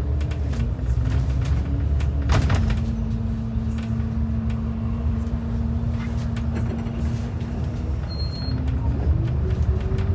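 Transit bus running with a low engine rumble and a droning tone that drops in pitch over the first couple of seconds, holds steady, then rises again near the end as the bus changes speed. A single sharp knock or rattle about two and a half seconds in.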